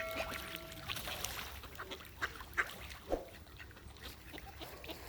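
Ducks and swans feeding at the water's edge, with short scattered calls and pecking sounds. A held, steady tone ends about a second in.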